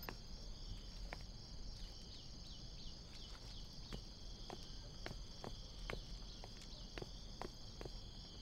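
Crickets chirping steadily in the background, with faint clicks scattered at uneven intervals.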